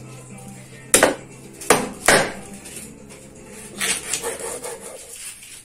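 A large knife chopping through the base of fresh corn ears onto a wooden cutting board: three sharp chops about a second in, then lighter cuts around four seconds in.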